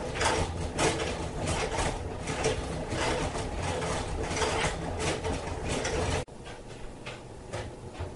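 Hand-cranked honey extractor running, its gears clattering and ratcheting with a steady low hum underneath. About six seconds in the sound drops abruptly and goes on more quietly.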